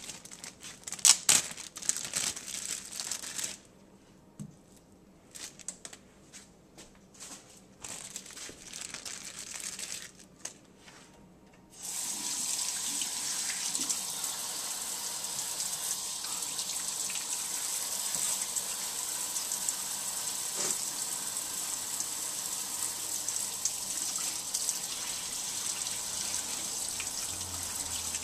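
Intermittent rustling and handling knocks, then about twelve seconds in a kitchen faucet comes on and runs steadily into the sink.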